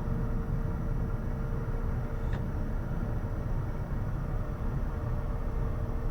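Steady low cockpit rumble of a Bombardier Challenger 350 taxiing with its turbofans at idle, with a faint click about two seconds in.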